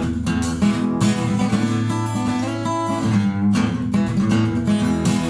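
Fender FA-25 steel-string dreadnought acoustic guitar being played, with chords strummed every second or two and left ringing between the strokes.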